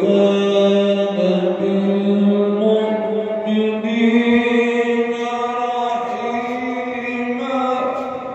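A man's voice chanting one long melodic phrase, holding drawn-out notes that step up and down in pitch.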